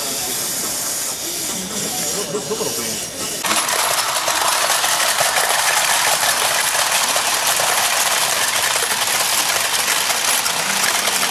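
Dense, steady metallic clatter of coins and the toy mechanisms of Choken-Bako dog coin banks, which starts abruptly about three and a half seconds in. Before that there is quieter hall noise with voices.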